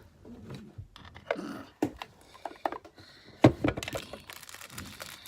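Long fingernails clicking and scratching irregularly at the backing of a small double-sided adhesive foam pad and the plastic part it goes on, with one sharper click a little past halfway.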